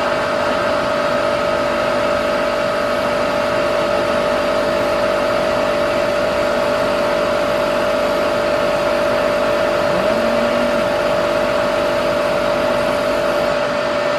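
Machine tool motor running steadily with a constant whine while drilling a hole in a steel part.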